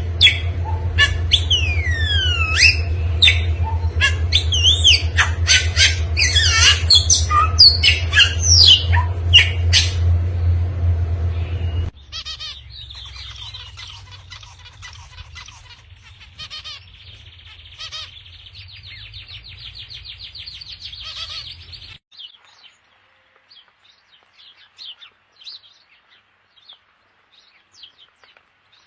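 Birds calling in three successive clips. First come loud squawks and chirps with falling whistled sweeps over a steady low hum. About twelve seconds in it cuts to quieter, fast trilling calls, and about ten seconds later to faint, scattered chirps.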